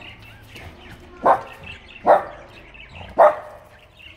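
Shih Tzu puppy barking three times, short sharp barks about a second apart.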